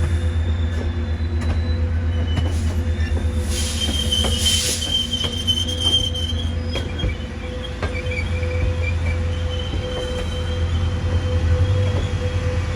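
Train rolling along the track with a steady low rumble. Thin, high wheel squeal comes and goes, and there are occasional sharp clicks.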